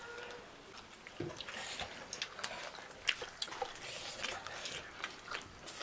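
Irregular light clicks and taps, with a faint trace of voice.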